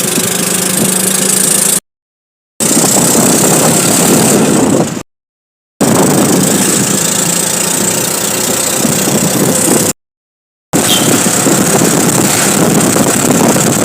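CNG auto-rickshaw engine running with road and wind noise during a ride. The sound drops out completely three times for under a second, at about two, five and ten seconds in.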